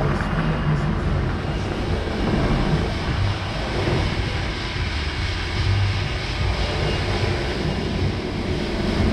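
DAF XF truck's diesel engine running steadily at low revs while the truck manoeuvres slowly.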